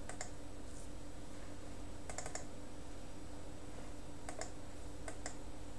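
Several sharp computer mouse clicks: a pair at the start, a quick cluster about two seconds in, and a few single clicks near the end, over a low steady hum.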